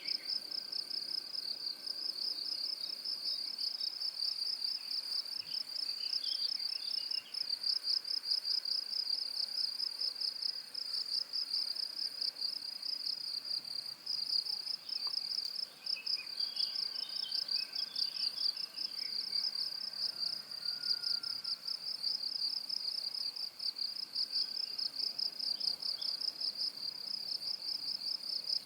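Crickets trilling without a break in a high, rapidly pulsing chirr. Fainter scattered chirps sound lower down now and then.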